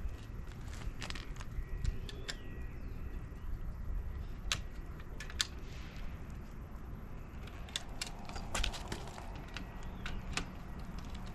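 Scattered light clicks and taps of hand tools and small metal parts being handled, over a steady low rumble.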